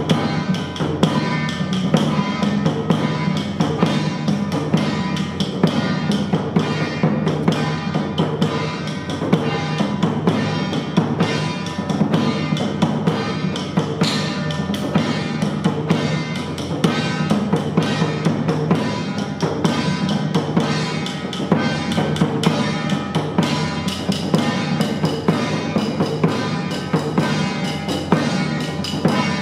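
Loud music with dense, continuous drumming and percussion over held steady tones.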